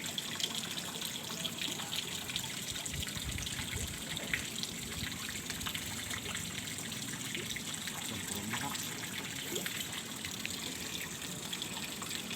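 Water of a small stream flowing and trickling steadily.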